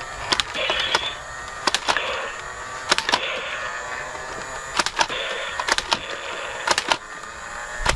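Toy foam-dart blaster firing single semi-automatic shots: sharp clicks about once a second, some in quick pairs, several followed by a brief ringing.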